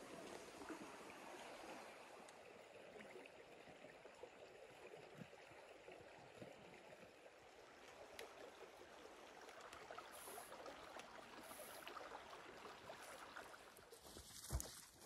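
Faint, steady flowing of a small stream. A sharp footfall or knock comes near the end.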